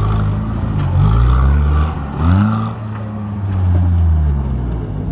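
Off-road 4x4 engine running hard, revving up twice: about a second in and again just after two seconds.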